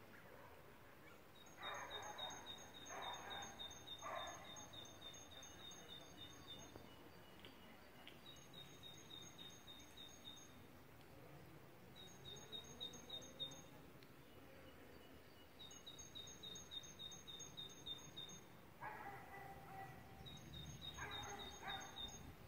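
Faint outdoor ambience: a dog barks three times, about a second apart, a couple of seconds in, and again twice near the end. Between the barks a high, rapidly pulsed bird trill sounds in several runs of a few seconds each.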